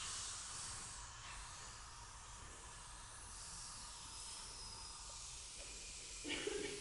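A cappella choir making soft, airy hissing sounds that swell and fade, with a short voiced sound near the end.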